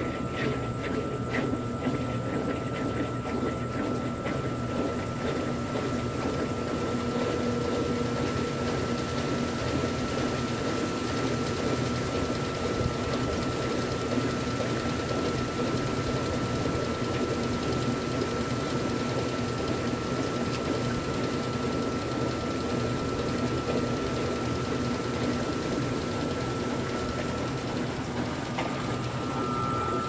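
Electrolux top-loading washing machine running with a load of bed sheets in water: water swishing round the tub over a steady motor hum and a thin high whine.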